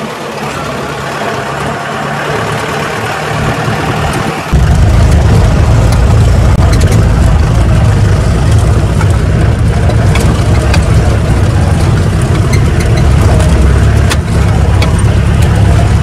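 Open jeep on the move, its engine running. About four and a half seconds in it turns suddenly to a loud, low engine drone with scattered knocks and rattles as the jeep bumps along a rough dirt track.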